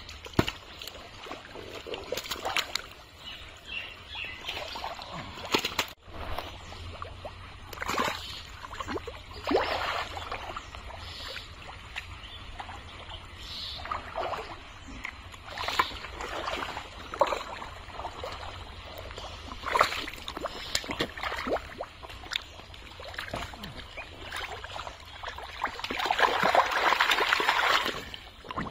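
Wet mud and water squelching and splashing as hands dig through thick pond mud and lift fish out, in irregular splats and sloshes. A longer, louder stretch of splashing comes near the end.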